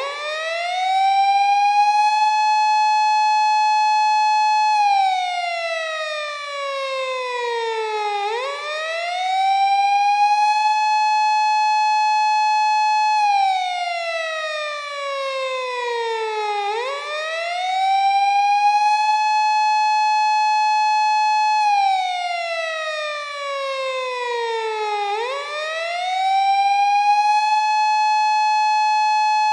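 Japanese police car siren wailing in its 8-second cycle: a single tone rises quickly, holds high for about three seconds, then slides slowly down before rising again, repeating about every eight seconds.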